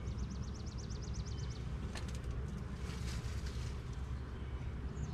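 A small songbird sings a rapid high trill of short down-slurred notes, about eight a second, for a second and a half, over a steady low rumble. A single sharp click comes about two seconds in.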